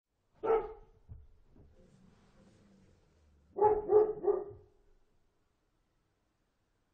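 A dog barking: one bark, then about three seconds later a quick run of three barks.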